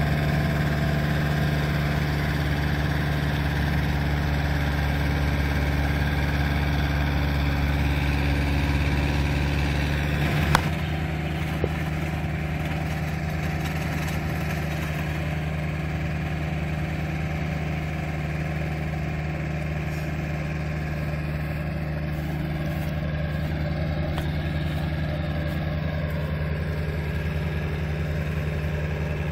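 Farm tractor engine running steadily at constant speed while working in a flooded rice paddy. There is a single sharp click about ten seconds in, after which the engine is a little quieter.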